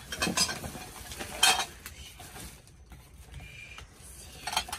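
Plastic bags rustling and crinkling as hands rummage through bagged rubbish, with items knocking and clinking against each other in a few sharp bursts, the loudest about a second and a half in.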